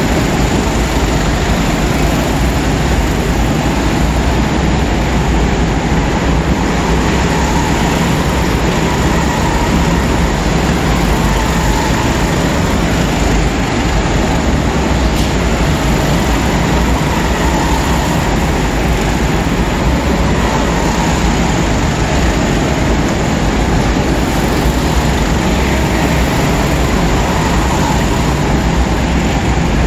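Go-karts racing around an indoor track: a loud, steady din of kart engines with no break, with faint rising and falling engine notes in it.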